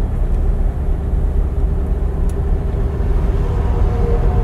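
Steady low rumble of engine and tyre noise inside a moving car's cabin, with a faint steady hum over it.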